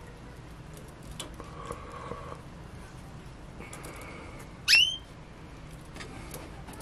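Caged canary giving one short, loud downward-sweeping chirp a little past the middle, just after a faint held note. Faint scattered clicks and soft earlier tones sit under it.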